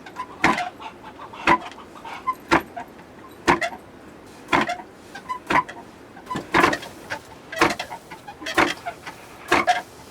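Traditional hand milling of barley: sharp knocks at an even pace of about one a second, each followed by a few smaller clicks.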